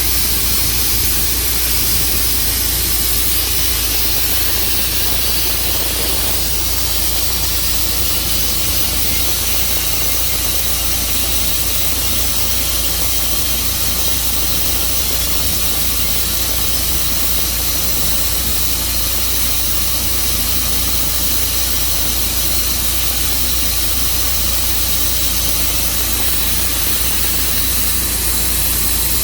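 Tru-Cut sawmill running steadily while sawing an elm log: a constant loud hiss over a low hum, unchanged throughout.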